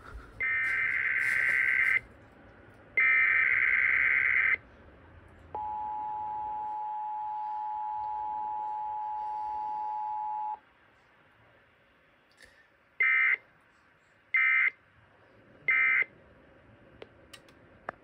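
Sage EAS ENDEC sending out an Emergency Alert System test. It plays two shrill warbling data bursts of the SAME header, then the steady two-note attention tone for about five seconds. After a short silence come three brief end-of-message data bursts.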